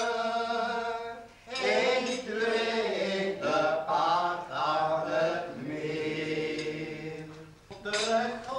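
A man singing a light Dutch song in long held notes, pausing briefly about a second and a half in and again near the end.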